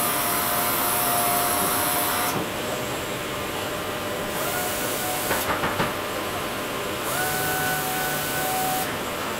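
A robotic sanding arm's sander running over a wooden cabinet door with a steady hiss and a whine. The whine stops and starts three times as the head works the door, with a few light clicks about halfway.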